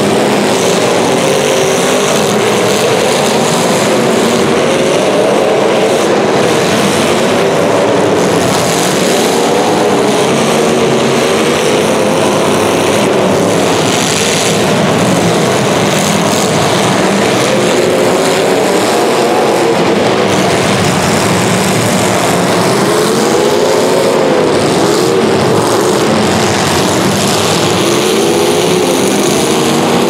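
Several demolition derby cars' engines running loud and hard, their pitch repeatedly rising and falling as they rev.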